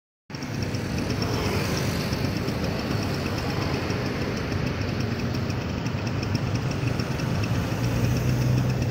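Road traffic at a signalled intersection: cars and motor scooters idling at a red light, a steady engine hum under general traffic noise. Near the end a lower engine drone grows louder.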